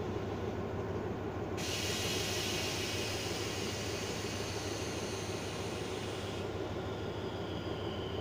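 Diesel locomotive standing and idling with a steady low hum. About a second and a half in, a high hiss starts abruptly and cuts off about five seconds later. A faint, slowly falling whine follows.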